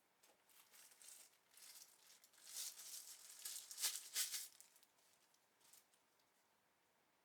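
Packaging being handled during an unboxing: irregular rustling and crinkling with light rattles, loudest with a couple of sharp clicks about four seconds in.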